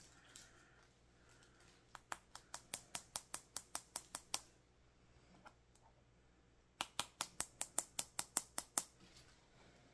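Long acrylic fingernails tapping quickly on a glossy eyeshadow palette lid, about five or six sharp clicks a second, in two runs of roughly two seconds each with a pause between.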